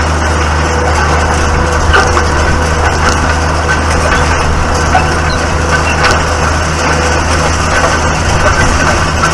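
Tractor engine running steadily, with irregular crackling and a few sharp clicks over it.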